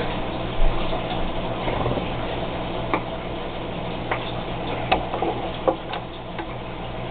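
Water trickling into a small triops tank, with scattered drips and small plinks about halfway through, over a steady low hum.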